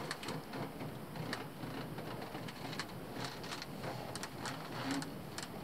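Handling noise from a handheld camera moved about inside a tank's steel hull: irregular light clicks and taps, several a second, over a low rumble.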